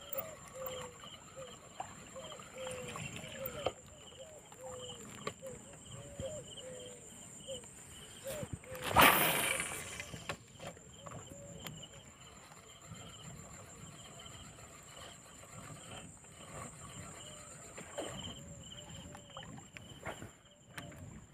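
An animal calling over and over, a short arched note about twice a second, over a steady high insect whine; the calls pause for a while after a loud rush of noise about nine seconds in, then start again.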